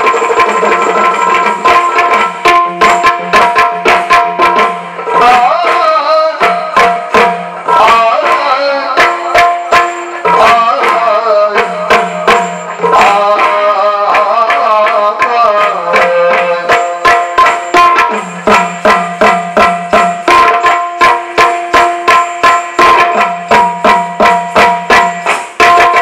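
Yakshagana accompaniment: a maddale barrel drum played in a fast, dense rhythm over a steady drone, with a man singing through the middle stretch.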